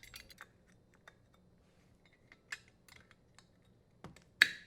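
Small scattered clicks as a strain relief nut is threaded and tightened on a dishwasher's electrical terminal box, with one louder short scrape near the end.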